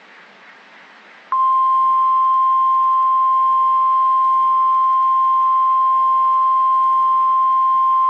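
NOAA Weather Radio 1050 Hz warning alarm tone: a single loud, steady tone that switches on abruptly about a second in, after faint radio hiss, and holds unbroken. It is the attention signal that heralds a severe thunderstorm warning broadcast.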